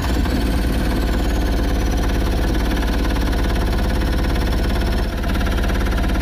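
Mahindra Supro's freshly rebuilt turbo diesel engine idling steadily just after starting, with a faint high whine that falls in pitch and settles during the first two seconds.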